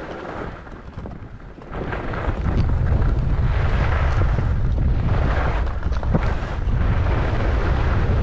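Wind buffeting the microphone of a skier's camera on the way down a ski run, a heavy low rumble, with the hiss and scrape of skis sliding over snow that swells in waves with the turns. It is quieter for the first couple of seconds, then louder from about two seconds in.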